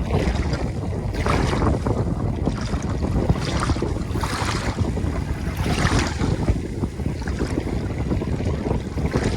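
Ocean waves breaking and washing on a shore over a steady low rumble, the hiss of the surf swelling about three times.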